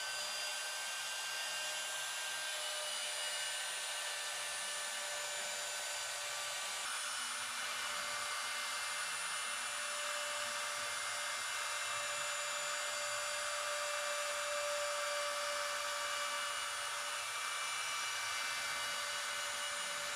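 CNC router spindle running at high speed, a steady whine over hiss, as a ball-nose bit mills a groove into plywood. The cutting hiss grows a little stronger about seven seconds in.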